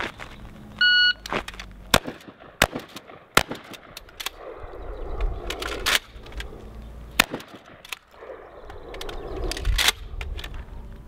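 Remington 870 pump-action shotgun in a reload drill: a short shot-timer beep about a second in, then several sharp shotgun shots, with the clatter of shells being loaded and the pump being racked between them.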